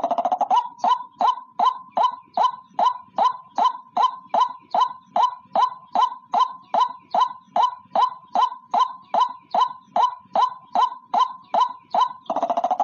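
White-breasted waterhen (ruak-ruak) calling in a long, even series of loud repeated notes, about two and a half a second, with a rattling burst at the start and again near the end; a lure recording used to attract the bird.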